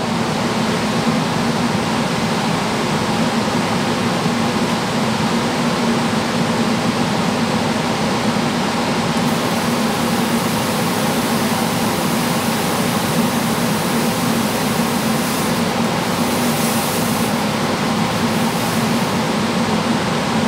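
Laguna Aflux 12 air filtration unit's fan running flat out: a loud, steady rush of air with a low hum underneath. A higher hiss joins about halfway through.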